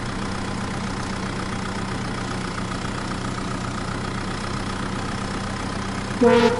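Truck engine idling steadily. Near the end, loud horn-like notes break in, stepping through a short tune.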